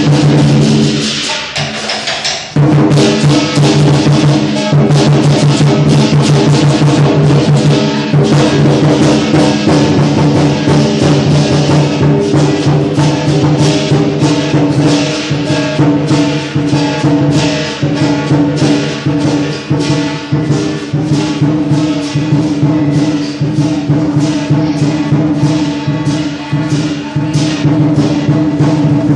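Lion dance percussion: a big drum beaten in a fast, driving rhythm with cymbals clashing, dipping briefly about a second in and then carrying on without a break.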